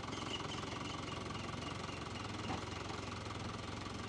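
Farm tractor's diesel engine running steadily at idle, with a faint knock about two and a half seconds in.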